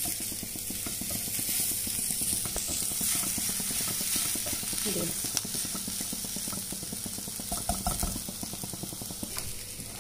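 Onions, green chillies and curry leaves sizzling in hot oil in a pan, stirred and scraped with a spatula: a steady frying hiss with many small scraping ticks, as the tempering with Kashmiri chilli powder is sautéed.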